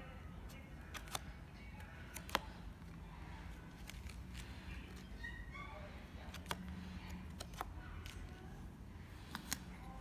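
Playing cards being handled and laid on a felt table, with a handful of sharp card clicks, the loudest about two seconds in.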